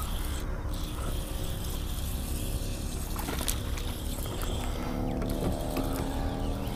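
Minn Kota electric trolling motor humming steadily; about five seconds in a whine of several steady tones joins the hum.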